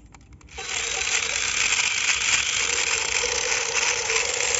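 Battery-powered toy revolver running: its small motor and plastic gears rattle steadily as the bullet cylinder spins, starting about half a second in.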